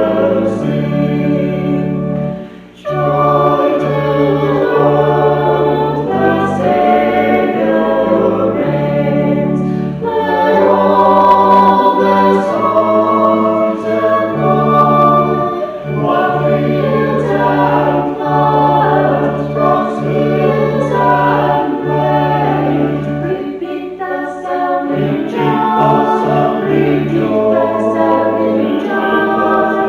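A choir singing a sacred piece in sustained, held chords, with a brief break about two and a half seconds in.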